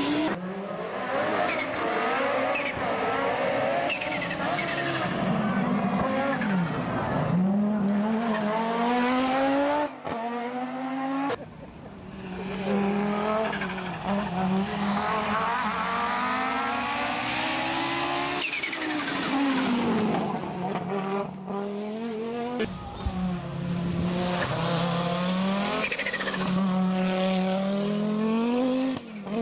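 Turbocharged five-cylinder engine of a Group B Audi Quattro rally car revving hard, its pitch climbing and dropping back again and again as it shifts up through the gears, with a few sudden breaks.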